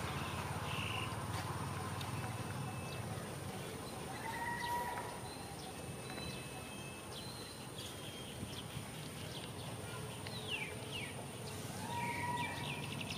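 Outdoor ambience: scattered short chirps and whistled calls, some sweeping quickly down in pitch, over a steady low hum and a faint high steady whine.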